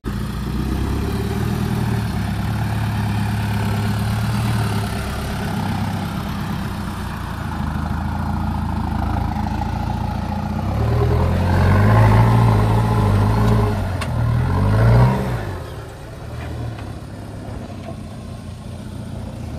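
Engine of a 4x4 off-road vehicle working under load, its revs rising and falling unevenly. It is loudest in the second half and falls back abruptly about three-quarters of the way through.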